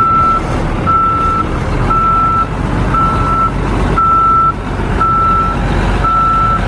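Truck reversing alarm beeping about once a second, a single steady high tone with each beep about half a second long, over a low running-engine rumble.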